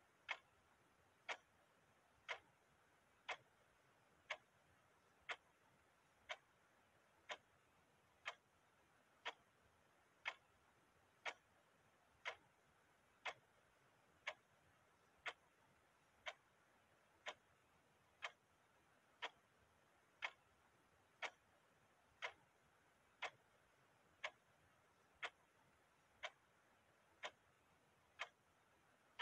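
A clock ticking steadily, one sharp tick about every second, with faint hiss between the ticks.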